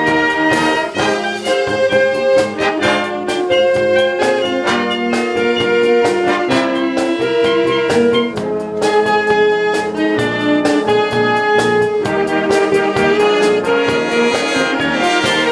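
Concert wind band playing a piece, with brass and saxophones carrying the melody and percussion keeping a steady beat.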